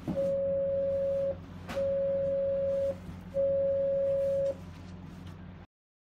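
Three long beeps on one steady mid pitch, each a little over a second, from the escape-room keypad box's speaker, with a click just before the second beep and a low steady hum underneath.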